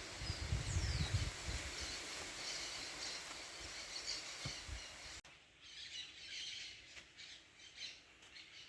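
Strong wind gusting, rumbling on the microphone with a broad rushing sound that fades over the first few seconds. After a sudden cut about five seconds in, birds chirp faintly here and there.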